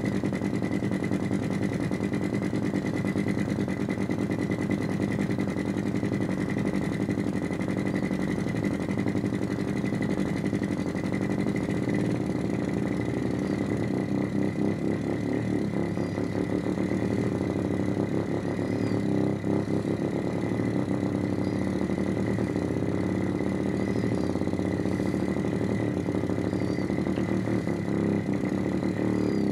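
Synthetic engine sound from a function generator in sweep mode, played through a small amplifier and speaker: a steady, rapidly pulsing low drone like a piston engine running evenly, with a thin steady high tone above it.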